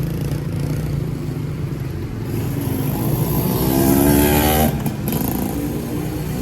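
A motorbike engine passing close, rising in pitch and getting louder for about two seconds, then falling away suddenly, over a steady low rumble of traffic.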